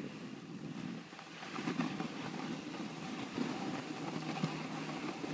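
Wind and motion noise rushing over the microphone on a ski slope, with snow scraping under a moving snowboard and a few short knocks.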